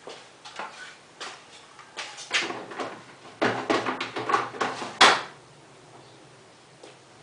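A run of knocks and clatters, as of things being handled and set down, thickest in the middle and ending in one sharp, loud knock about five seconds in.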